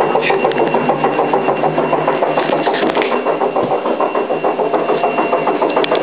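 Hoover Time Manager H130E washing machine running: a steady mechanical drone that pulses quickly and evenly, several beats a second, with a thin steady high whine on top.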